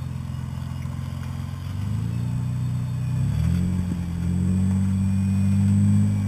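Off-road vehicle's engine running at low speed. Its pitch steps up twice, about two and three and a half seconds in, then holds at the higher revs.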